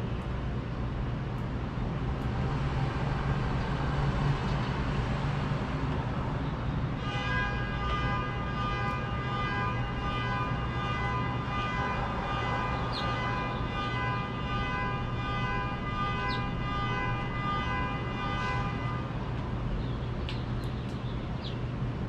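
Steady low city hum, with a long, steady horn-like tone full of overtones that starts about seven seconds in, holds for about twelve seconds and then stops. A few faint, short house finch chirps come near the end.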